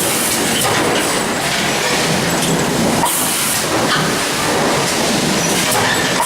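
Steady, continuous noise of running machinery, with a short hiss about three seconds in; recorded as an abnormal noise.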